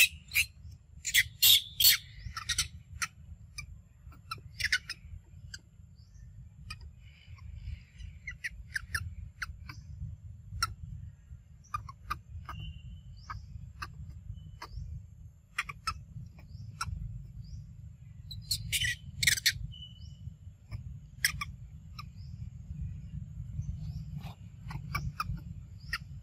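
Short, high-pitched animal squeaks and chirps, loudest in a cluster about a second in and again about two thirds of the way through, over a steady low rumble.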